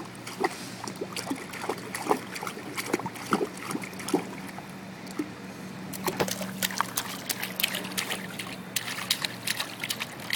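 A toddler's hands slapping and splashing water on a swimming pool's shallow step: a run of quick little splashes and trickles, busier from about six seconds in.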